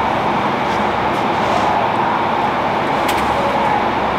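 Steady machinery noise, an even unbroken drone, with a faint click about three seconds in.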